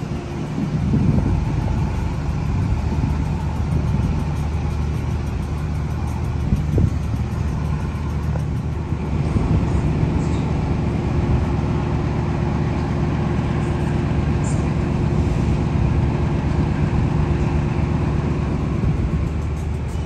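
Indian Pacific's diesel-electric locomotive running with a steady low drone, and a steady higher tone joins it for several seconds mid-way. Near the end the train's stainless-steel carriages move past close by.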